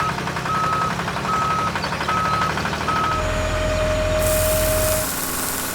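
Heavy vehicle engine running with a reversing alarm beeping about once a second; a little after 3 s the beeping stops and a steady lower tone sounds over a heavier rumble for about two seconds, while a hiss of air starts about four seconds in and runs to the end.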